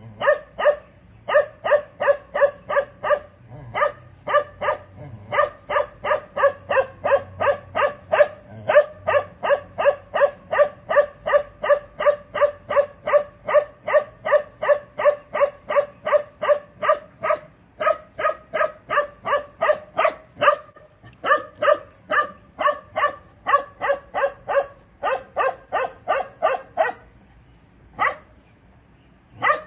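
Young Bakarwal dog barking continuously in a fast, even series of about three barks a second. There are a few short breaks, and near the end a longer lull broken by a single bark.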